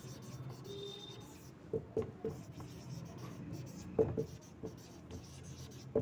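Marker pen writing on a whiteboard: scratchy strokes and light taps of the tip against the board, coming in short clusters about two and four seconds in and again near the end.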